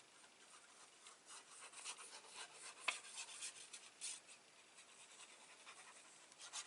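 Faint, repeated rubbing of fingers smoothing glued paper and cardstock down onto a card, with one light tap about three seconds in.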